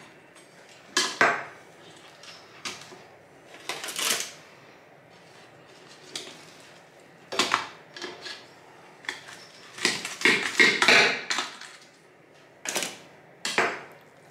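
Knife blade cutting smoked spareribs apart on a metal serving platter: irregular scrapes and clinks of steel on the platter, the longest and loudest run about ten seconds in.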